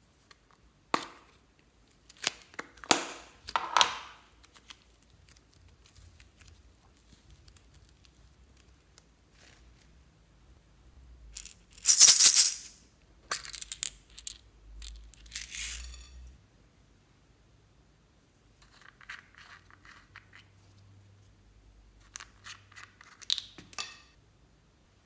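Small plastic containers being handled and opened: lids clicking and snapping, scraping and rattling of plastic. The loudest part is a rustling, rattling burst about twelve seconds in, with a few sharp clicks near the end.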